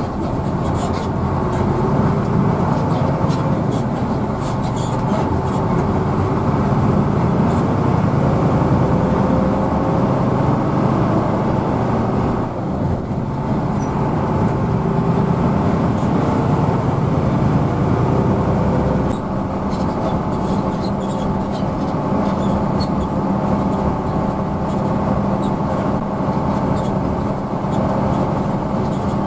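Hino AK bus under way, heard from inside the cabin: a steady engine and road rumble with a faint whine that rises and falls. The sound dips briefly about 12 seconds in and shifts again about 19 seconds in.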